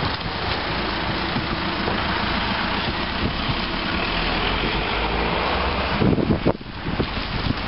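Steady street noise carried by a running vehicle engine, with a louder low rumble about six seconds in.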